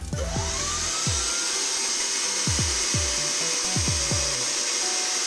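Small 12-volt, 220-watt electric motor switched on straight from a car battery, spinning up with a rising whine over about a second and a half, then running with a steady whir as it drives a crankshaft through a belt. The motor seems to struggle to bring the roughly 2 kg crankshaft and pulley up to its full speed.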